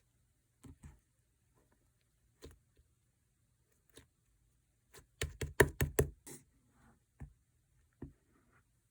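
Green slime being handled by hand: scattered sharp taps and clicks, with a quick run of about six louder sharp clicks around the middle.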